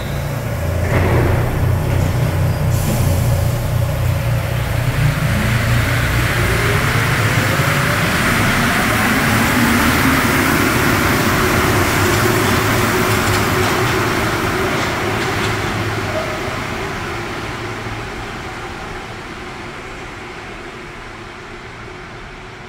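A rubber-tyred MP59 Paris Métro train pulls out of the station and accelerates, its traction motors giving a whine that rises in pitch over the running noise. The sound then fades steadily as the train draws away into the tunnel.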